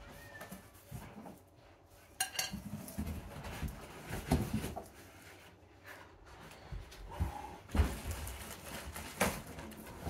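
Cardboard packaging being handled as a microwave is unboxed: rustling and scraping of the box and its cardboard inserts, with irregular knocks, the sharpest about two seconds in and near the end.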